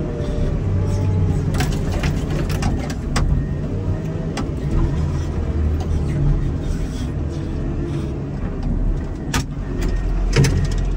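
Komatsu wheel loader's diesel engine running steadily, with several sharp knocks and clanks, the loudest two near the end.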